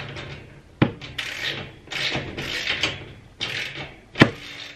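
A wrench tightening a locking nut onto a carriage bolt through a steel shelf bracket: a string of short scraping strokes of metal on metal, with a sharp metal click about a second in and another near the end.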